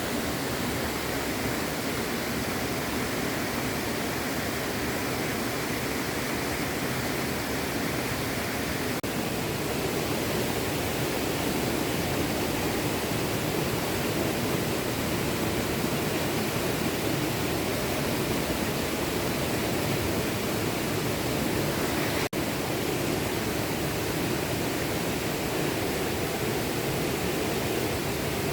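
Small stream flowing: a steady rush of water, with a brief dropout about twenty-two seconds in.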